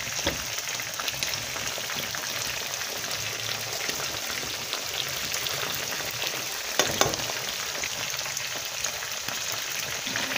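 Chicken wings and thighs frying in hot oil in a skillet: a steady sizzle dense with small crackles and pops, with two louder clicks about seven seconds in.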